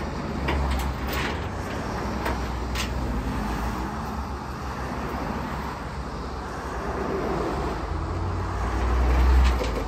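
Tow rig's engine running steadily while its winch draws the box truck up the tilted bed, with a few light metallic clicks early on. The low rumble grows louder near the end.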